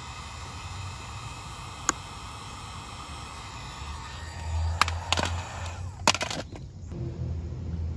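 Handheld Wagner heat gun running with a steady blowing hiss, switched off about six and a half seconds in. A few sharp clicks come from a flat screwdriver prying at the edge of a motorcycle saddlebag reflector.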